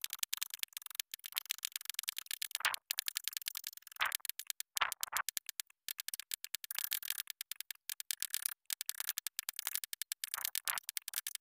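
Hammer striking a small steel punch held on a hardwood panel, stamping dots into the carving. It makes a quick, steady run of sharp metallic taps, several a second, with a few louder knocks.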